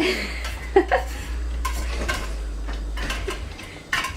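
Light clinks and scrapes of a cat food dish and utensil as canned cat food is served and eaten, over a low rumble of handling noise that fades near the end.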